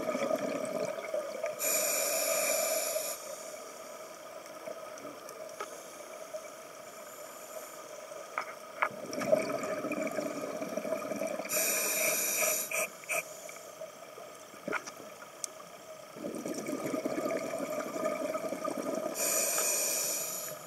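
Scuba regulator breathing: three breaths, each a short, sharp hiss on the inhale followed by a longer rush of exhaled bubbles, about eight seconds apart.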